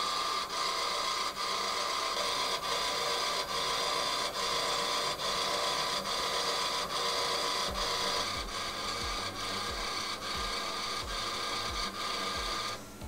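CNC bangle engraving machine running its automatic surface-mapping cycle, the probe tracing the gold bangle as it turns: a steady high whirring with a faint tick about once a second, cutting off near the end.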